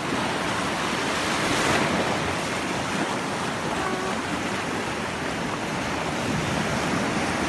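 Sea surf washing on a beach: a steady rush of breaking waves that swells slightly about two seconds in.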